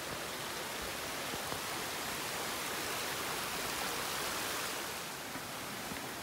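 Rushing water of a gorge stream: a steady hiss that grows a little louder in the middle and eases off about five seconds in.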